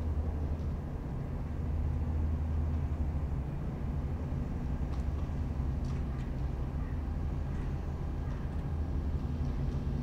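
Pratt & Whitney R-985 nine-cylinder radial engine of a Beech Staggerwing biplane idling, a steady low rumble.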